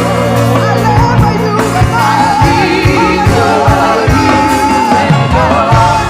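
Live gospel worship music: a worship band with bass and drums, and voices singing over it.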